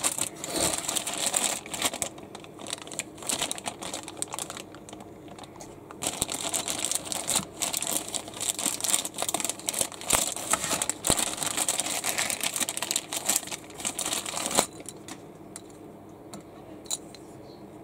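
Thin clear plastic bag crinkling and rustling as hands work a small wooden toy locomotive out of it. It comes in two spells, the second longer, and stops suddenly near the end.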